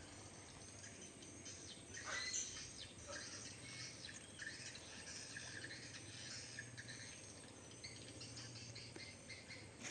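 Faint outdoor ambience of birds chirping and insects calling, with scattered short chirps over a low, steady hum.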